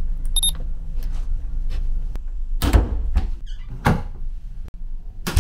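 Wooden-framed cabin sliding door slid along its track by its handle, with clicks and several knocks as it moves; the loudest knock comes near the end.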